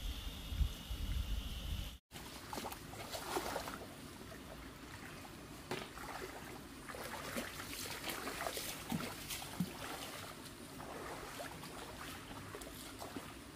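Crickets trilling steadily, cut off about two seconds in. Then water sloshing and trickling, with scattered small splashes and clicks.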